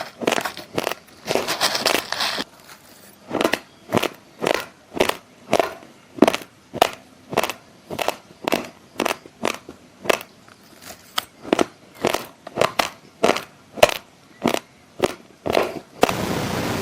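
Close-miked chewing of raw basmati rice grains: a regular run of sharp crunches, about two a second, with a short rustling spell about a second in. Near the end the crunching stops and gives way to a steady hiss.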